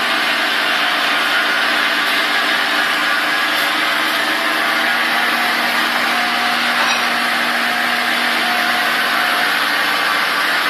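Ikegai metal lathe running steadily, a constant machine noise with a fixed hum in it.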